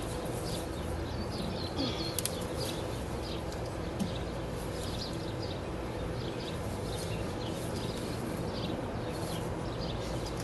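Birds chirping over a steady low hum, with a few faint clicks about two and four seconds in as hoses are handled in the engine bay.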